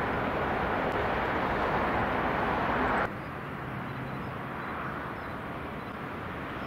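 Shinkansen bullet train passing at full speed, giving a loud, steady rushing roar. The roar cuts off abruptly about three seconds in, leaving a quieter, even rumbling hiss.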